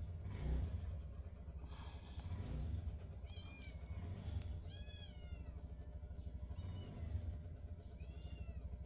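A cat meowing three times, each call rising then falling in pitch, over a steady low drone.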